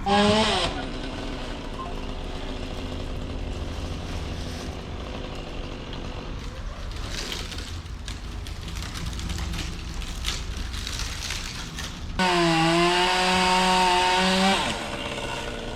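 Chainsaw revving briefly at the start and dropping back. Near the end it runs at full throttle for about two seconds, cutting dead oak limbs, then drops off. A steady low engine rumble runs underneath.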